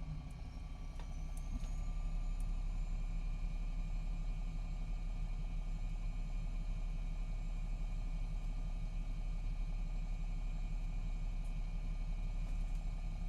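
MCI D4500CT coach's Cummins ISX12 diesel and Allison B500R automatic transmission giving a steady low drone, growing a little louder in the first couple of seconds and then holding an even note. The transmission is in its last stages, by the uploader's account.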